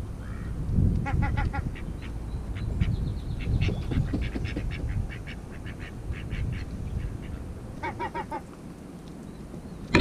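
Herring gull pecking feed pellets off a rock right beside the microphone, a quick series of sharp taps, with wind rumbling on the microphone. Twice, about a second in and near the end, a short run of rapid quacking calls; a loud knock comes at the very end.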